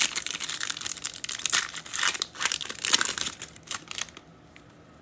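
Foil wrapper of a trading-card pack crinkling and tearing as it is ripped open, a run of short rustles that stops about four seconds in.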